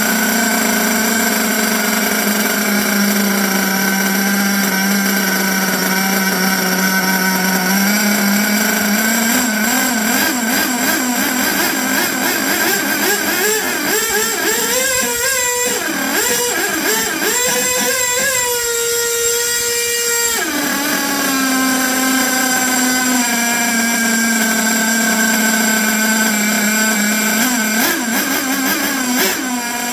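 HPI Savage X 4.6 nitro engine breathing through a newly fitted aluminium performance exhaust, with a deep, loud note. It idles steadily, is revved up slowly with a wavering pitch, is held high, then drops suddenly about twenty seconds in back to a slightly faster idle. The owner considers the engine out of tune after the pipe swap, probably running lean.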